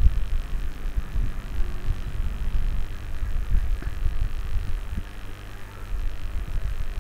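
Low rumbling hum with many irregular soft thumps, and no speech.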